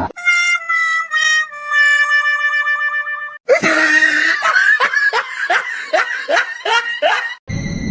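Comic background music: held reedy tones with a wavering note, then a run of quick falling glides, about three a second, that stops suddenly near the end.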